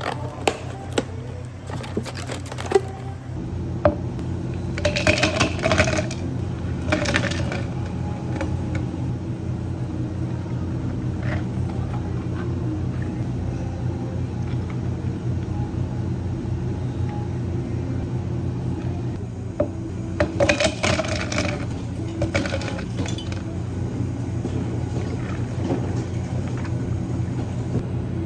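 Glassware and utensils clinking and clattering during drink preparation, with a few sharp clicks in the first seconds and two short busier clusters of clatter, over a steady low machine hum.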